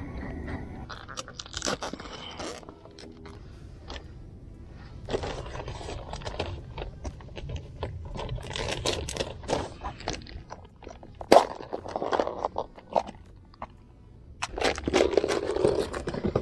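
Irregular scraping and crunching with many sharp knocks, typical of handling noise in a small boat; one loud knock about eleven seconds in.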